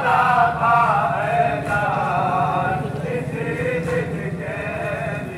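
Men chanting a Muharram lament (noha) in a wavering melody, over a steady low hum.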